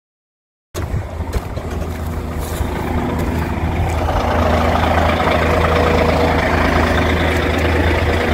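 Heavy vehicle engine idling steadily, cutting in abruptly under a second in and growing a little louder a few seconds later.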